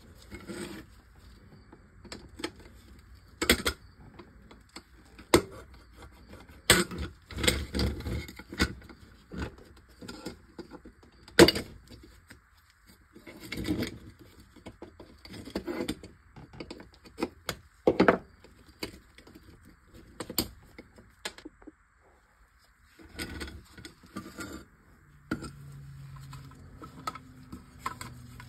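Irregular clicks, taps and clinks of hand tools and die-cast metal toy tractor parts being handled and worked apart during disassembly. A faint low hum comes in near the end.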